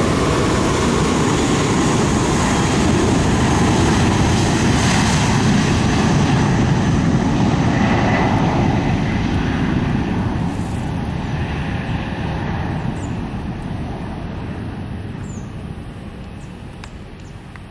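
Airbus A320-232 airliner taking off, its two IAE V2500 turbofan engines at takeoff power making a loud, steady jet roar. About ten seconds in the roar begins to fade steadily as the aircraft moves away.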